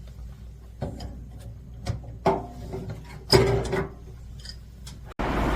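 A few knocks and clatters of hard objects being handled, the louder ones with a brief ring. Near the end it cuts abruptly to steady street traffic noise.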